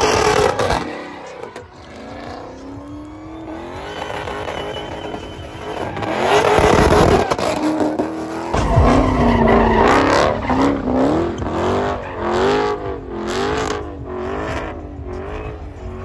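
A car drifting in circles, its engine revving up and down again and again as the spinning rear tyres squeal on the asphalt. In the second half the revs swing up and down about once a second.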